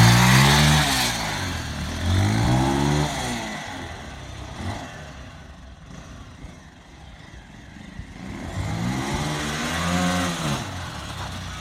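Bajaj Pulsar 220's single-cylinder engine running through its exhaust with the dB killer baffle removed, as the bike is ridden: the engine note rises and falls in pitch three times, loudest at the start, quieter in between.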